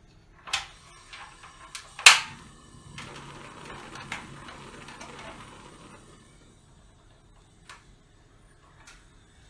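Kitchen utensils and containers being handled: several sharp knocks and clinks, the loudest about two seconds in, followed by about three seconds of soft rushing noise and then a couple of faint taps near the end.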